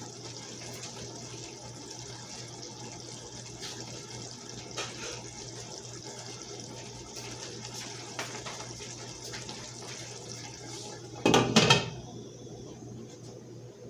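Water running steadily from a tap, ending about twelve seconds in with a brief loud knock.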